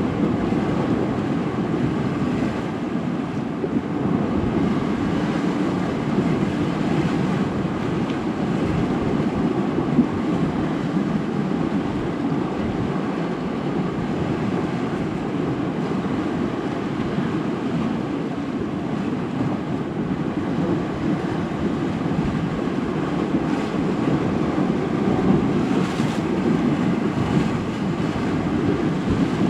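Sea surf washing onto the shore in a steady rushing wash, with wind buffeting the microphone.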